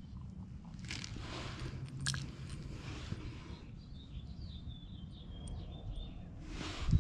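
Faint bird chirps over a low background rumble, with a few handling noises and a click, and a loud thump near the end.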